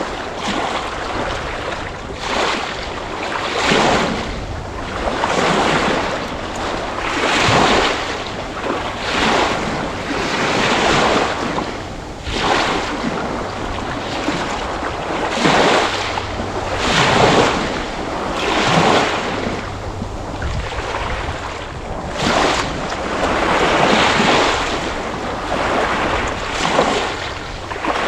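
Ocean waves breaking and washing in, a run of hissing surges that swell and fade every second or two.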